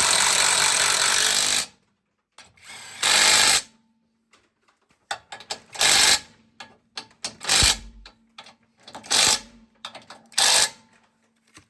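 A power tool run in bursts: one long run of nearly two seconds, then five short bursts of about half a second each, spaced a second or two apart.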